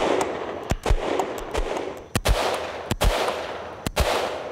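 Iranian-made G3 battle rifle in 7.62×51mm NATO firing single shots, about one a second, roughly four in all. Each loud report is closely followed by a second crack and then a ringing tail.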